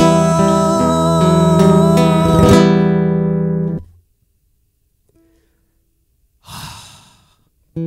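A man's voice holds the last sung note of the phrase with vibrato over a strummed acoustic guitar chord; the voice stops about two and a half seconds in. The chord rings on and is damped suddenly about four seconds in. After a silence, a short breathy noise comes near the end.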